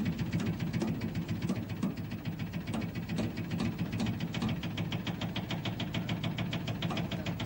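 Lifeboat diesel engine running at idle, a steady rapid knocking of about eight beats a second over a low rumble.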